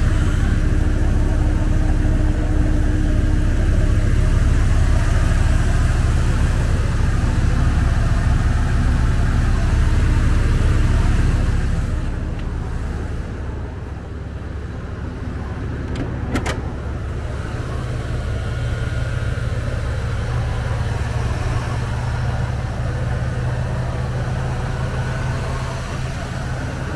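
Ford Triton V10 engine of a 1997 Ford E350 idling steadily with a low, even hum, quiet for its size. The hum is louder for about the first twelve seconds, heard from beneath the van, then softer. Two sharp clicks come about sixteen seconds in.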